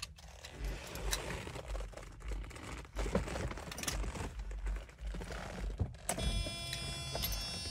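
Keys jangling and clicking at the ignition of a 1991 Mercedes 190E as the key is handled and turned. About six seconds in, a steady hum starts.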